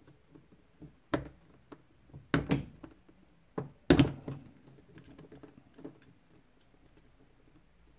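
Hook tool clicking and scraping against the retaining C-clip on the back of an Assa oval lock cylinder as the clip is pried at. There are sharp clacks about one, two and a half and four seconds in, the last the loudest, with lighter ticks between.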